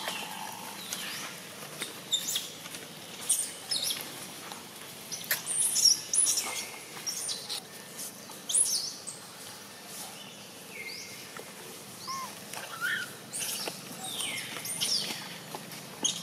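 Infant long-tailed macaque crying in short, high-pitched squeals, again and again at irregular intervals, the whine of a baby refused the teat.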